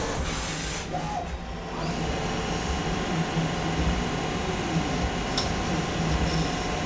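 Metal lathe running steadily with a steady hum and whir while a center drill is fed into the end of 5/8 hex steel stock for a nut blank.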